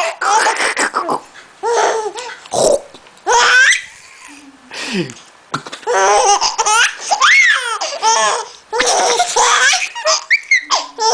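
Baby laughing in repeated high, bubbling bursts at an adult's silly noises, with a short deep falling 'bom'-like vocal noise about four and a half seconds in.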